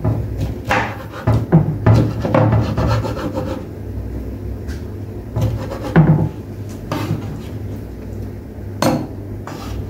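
Knife cutting tinned pineapple on a chopping board: irregular strokes and knocks of the blade against the board, bunched in the first few seconds, again around six seconds in and once near the end.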